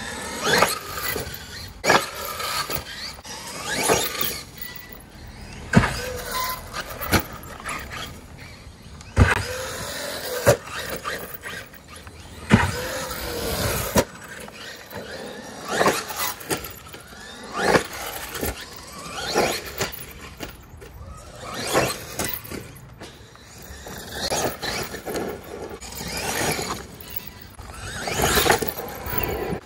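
Traxxas Maxx 1/10-scale electric RC monster truck driving in repeated bursts of throttle: its brushless motor whines up and down in pitch, with tyre noise and several sharp knocks.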